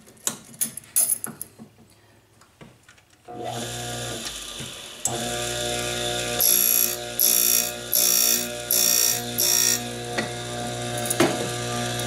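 Key duplicating machine: a few handling clicks, then its motor switches on about three seconds in and runs with a steady hum. From about six and a half seconds the cutter bites the brass key five times in short, shrill grinding bursts, putting a light starter cut on a Yale key copied from a quick-set key.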